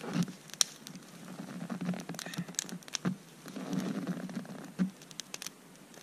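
Small wood fire of dry twigs crackling, with scattered sharp snaps and rustling as twigs are handled and pushed into it.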